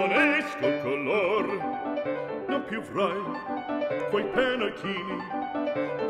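Background music: a classical piece with an operatic voice singing with strong vibrato over piano.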